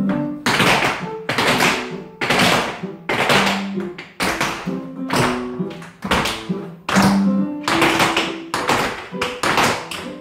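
Music with a steady beat, with dance shoes tapping on a wooden floor in time, in strong, regular strokes about every three-quarters of a second.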